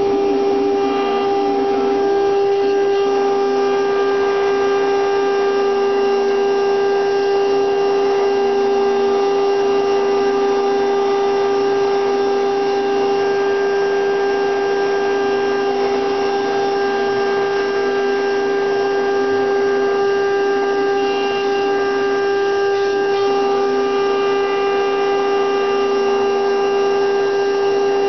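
CNC router spindle whining at a steady high pitch while its bit carves a wooden figure turning on the rotary axis, with the rough noise of the bit cutting the wood underneath.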